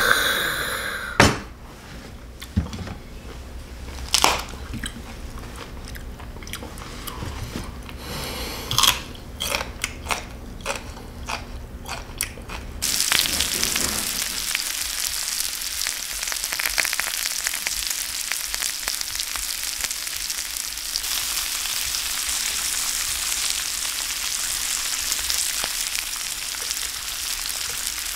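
Scattered sharp clicks and crunching, chewing sounds. About thirteen seconds in, a steady sizzle starts abruptly: Korean beef small intestines (gopchang) and liver grilling with onion slices in a cast-iron pan.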